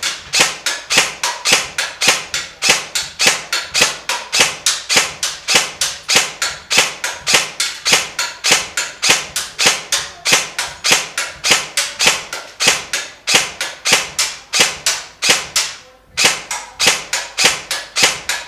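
G&G PCC-9 airsoft electric gun (AEG) firing single shots in semi-automatic, about three or four sharp shots a second, with a short pause about sixteen seconds in.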